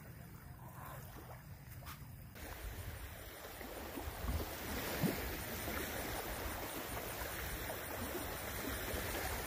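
Small waves lapping on a sandy lake shore, with wind on the microphone. The sound gets louder from about two seconds in.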